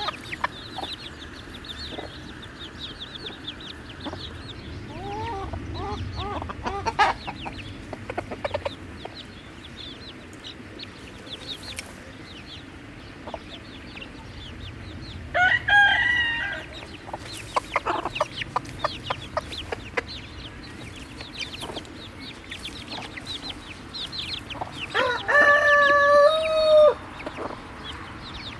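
A flock of chickens clucking and calling over their feed, with many short sharp clicks. A rooster crows about halfway through, and crows again, longer, near the end.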